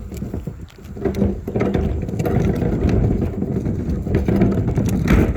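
Wheeled plastic garbage can being rolled over rough ground: a loud, rattling rumble that builds about a second in and stops abruptly near the end.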